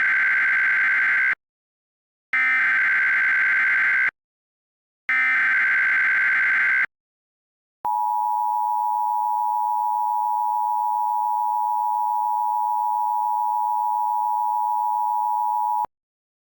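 Emergency Alert System SAME header: three short bursts of screeching digital data, then the EAS two-tone attention signal held steady for about eight seconds before cutting off sharply. Together they open a new emergency alert broadcast.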